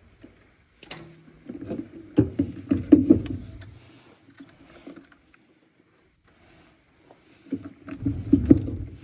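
Knocks and rattles from work on a rusty furnace's metal parts, in two bursts of a few seconds each: one starting about a second and a half in, the other near the end.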